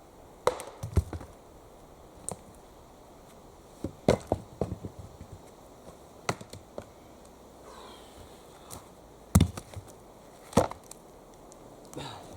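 An axe chopping wood: about ten sharp, unevenly spaced strikes, some coming in quick pairs.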